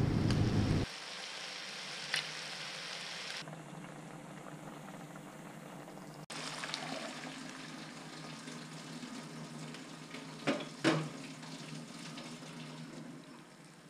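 Chicken pieces sizzling and bubbling in their own juices in a frying pan, a steady hiss. Two short knocks about ten and a half seconds in, from a spoon against the pan.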